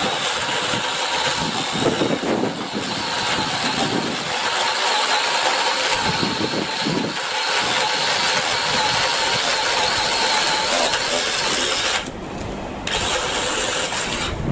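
BLACK+DECKER 18V cordless electric saw running with a steady motor whine while cutting branches. It stops about twelve seconds in and starts again a second later.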